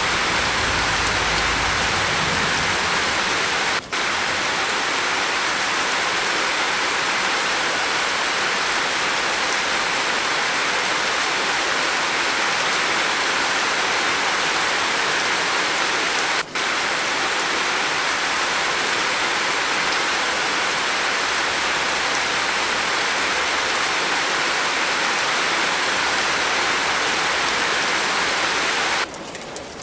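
Steady, heavy rain on a roof, an even hiss of drops, cut by two momentary gaps. Near the end it drops abruptly to softer rain.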